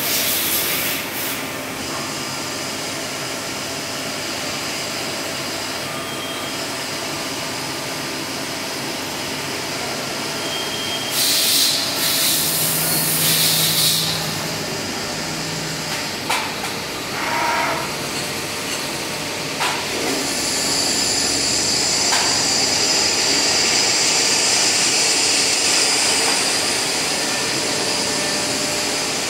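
CNC lathes turning camshafts run with a steady mechanical hum and hiss. A loud hissing burst comes about eleven seconds in and lasts some three seconds, a few short knocks follow, and a steady high whine sets in at about twenty seconds.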